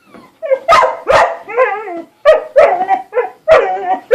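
Dog barking loudly in a rapid run of about eight barks, a few of them drawn out with a wavering, howl-like pitch.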